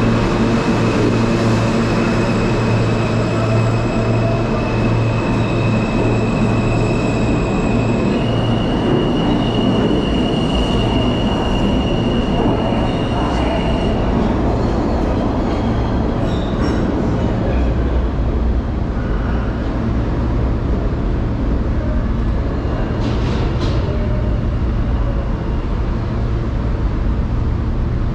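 New York subway train running at speed through a tunnel, heard from inside the car: a continuous rumble with a high, steady whine that steps up in pitch about eight seconds in and dies away a few seconds later. A few clicks come later on.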